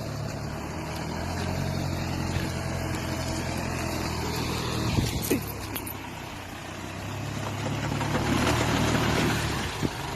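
Off-road vehicle engine running steadily, with a few knocks about halfway through; it grows louder for a couple of seconds near the end.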